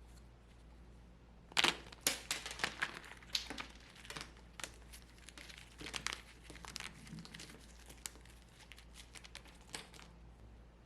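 Dry, brittle baked soap crackling and crumbling as it is broken up: a dense run of sharp crackles and crunches that starts about a second and a half in with the loudest snap, then comes in irregular smaller cracks.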